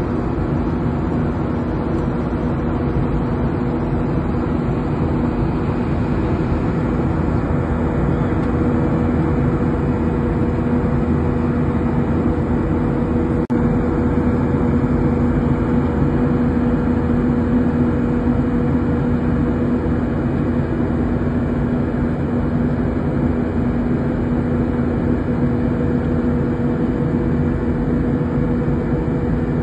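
Steady cabin noise of a jet airliner in flight: engine and airflow noise with a steady low hum under it, and a single brief click about thirteen seconds in.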